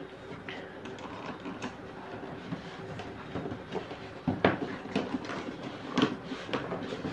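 Cardboard boxes rustling and scraping against each other as a laptop's retail box is slid out of its shipping carton, with several sharper knocks of cardboard in the second half.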